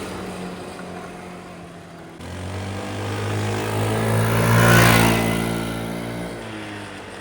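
GY6 scooter engine revving as the scooter is ridden past. It picks up about two seconds in, grows louder to a peak around five seconds, then drops in pitch and fades as it moves away.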